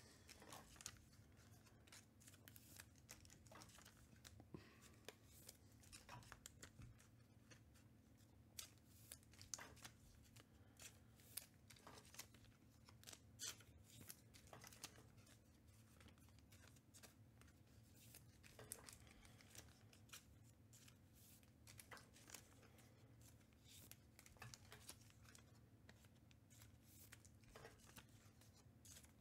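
Faint handling of trading cards and foil pack wrappers: scattered soft clicks and rustles, about one a second, over a faint steady low hum.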